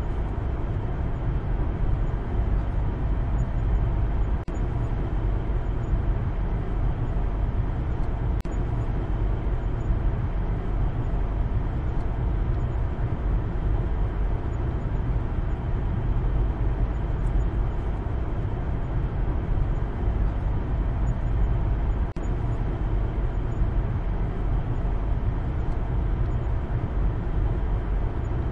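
Maruti Suzuki Baleno being driven, heard from inside the cabin: a steady low rumble of engine and road noise.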